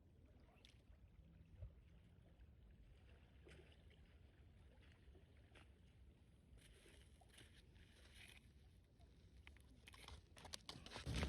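Near silence: a faint low rumble with a few scattered faint clicks, turning into louder crackling clicks near the end.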